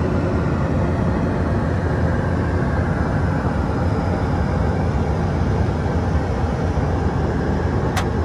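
Steady in-flight roar of a Boeing 757-200 at cruise, airflow and engine noise heard inside the lavatory, with one short click near the end.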